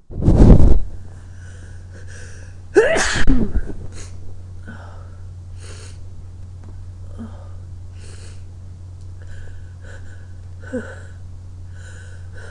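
A person sneezing twice, loudly, right at the start and again about three seconds in, the second with a voiced, falling cry. Quieter short breaths follow at intervals over a steady low hum.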